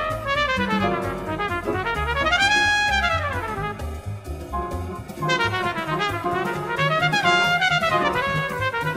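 Jazz recording: a trumpet plays quick runs that climb and fall, over bass and drums.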